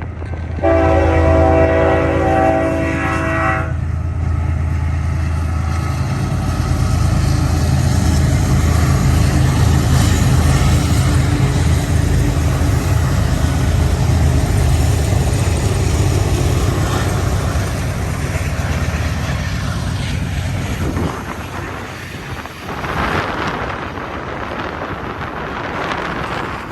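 BNSF freight locomotives pass with a loud low diesel drone. A multi-note locomotive horn sounds one steady blast lasting about three seconds near the start. After about 21 s the engine drone drops away, leaving the rushing rumble of the passing intermodal cars and wind on the microphone.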